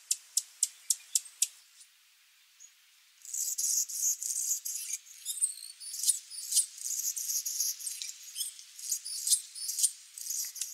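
Hummingbird calling: a few evenly spaced sharp, high chips at the start, then after a short pause a dense run of high, squeaky chattering and twittering from about three seconds in.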